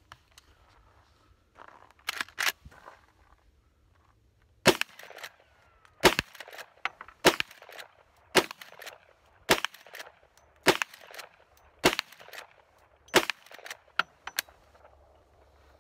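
Eight shots from a Marlin 1894 CSBL lever-action rifle firing .38 Special rounds, fired quickly about one every second, with the fainter clicks of the lever being worked between shots.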